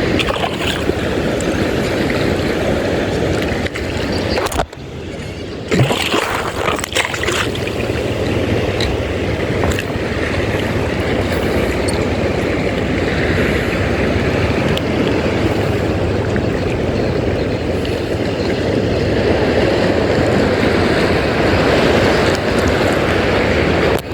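Steady rushing of wind and sea water around a small fishing boat at sea, with a brief drop about five seconds in.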